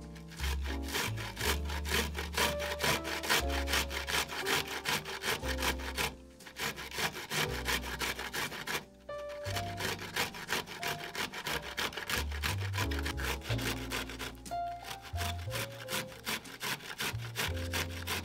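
Broccoli florets rubbed hard against a stainless steel box grater, a run of quick rasping strokes several a second. The strokes ease off for a few seconds near the middle, then pick up again.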